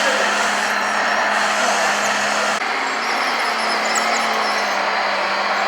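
RC construction models' small motors and gearboxes running, a steady mechanical noise over a constant low hum that shifts slightly about two and a half seconds in.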